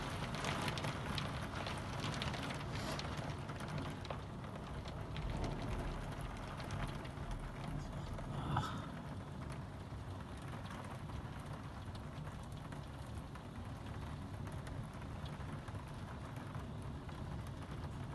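Heavy rain falling, heard through a window pane as a steady hiss, with many small taps of drops on the glass that are thickest in the first few seconds.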